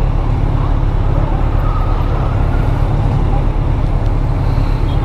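Kawasaki Ninja 1000's inline-four engine running while riding through town traffic, under a steady low wind rumble on the microphone.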